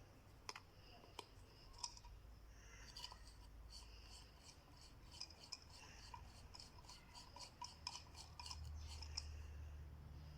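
Faint, rapid light clicking and scraping from small handwork, about four clicks a second from about three seconds in until near nine seconds, after a few single clicks.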